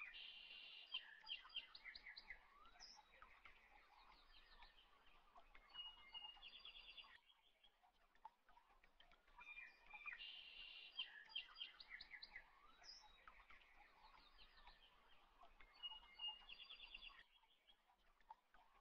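Faint birdsong of quick high chirps and trills, in a phrase of about seven seconds that plays again after a short pause, the same each time: a looped birdsong recording.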